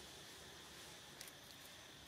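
Near silence: faint steady background hiss, with a couple of faint clicks a little past a second in.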